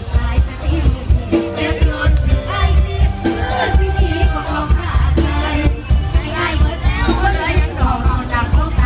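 Live Isan luk thung band music at concert volume, with a woman singing over a heavy, pulsing bass beat.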